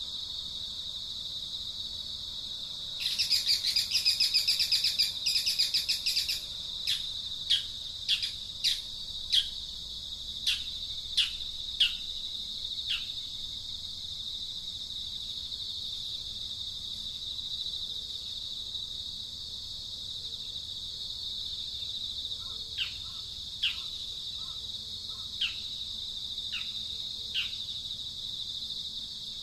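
Insects buzzing steadily at a high pitch, with a bird breaking in about three seconds in with a few seconds of loud rapid trilling, then a run of short, downward-sliding whistled notes; a few more such notes come near the end.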